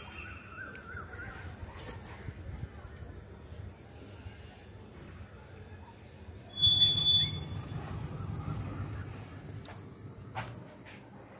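Insects chirring in a steady high-pitched drone. About six and a half seconds in, a sudden louder low noise lasts about a second.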